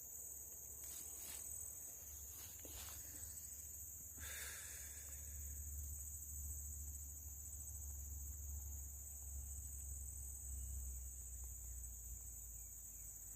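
Steady high-pitched shrilling of insects in chorus, with a few faint rustles in the first few seconds.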